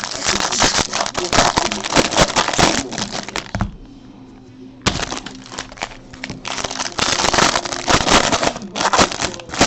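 A box of baseball card packs being torn open, its wrapping and the packs crinkling and crackling, with a short pause about four seconds in.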